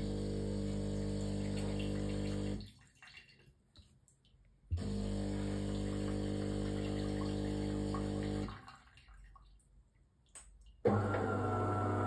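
De'Longhi Magnifica Start ECAM 220.22.GB coffee machine's pump humming in two steady runs, one of about two and a half seconds and one of about four, separated by a pause with a click, as water runs from the spouts into the cup. About a second before the end, a louder, different motor sound starts suddenly.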